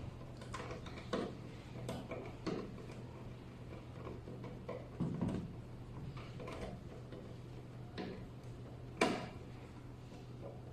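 Irregular clicks and knocks of hardware being handled, about eight in all with the sharpest about nine seconds in, over a steady low hum.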